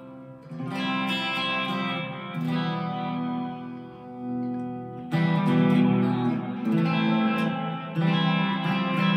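Epiphone Les Paul Modern Figured electric guitar played through an amp's crunch channel, giving slightly overdriven chords that are strummed and left to ring. Harder strums about five seconds in and again near the end are louder.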